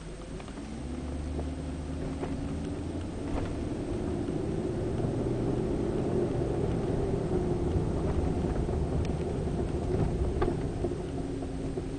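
BMW 740i driving, heard from inside the cabin: a steady engine and road rumble that builds about a second in as the car picks up speed and eases off near the end, with a few faint scattered clicks.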